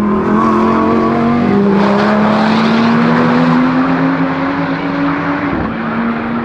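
Several GT4 race car engines running together, their notes rising slowly in pitch as the cars accelerate; about five and a half seconds in, one note falls away and another takes over.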